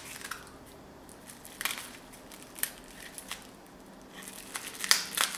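Scissors snipping open a small mail packet: a scatter of short, sharp snips mixed with crinkling of the packaging, coming closer together near the end.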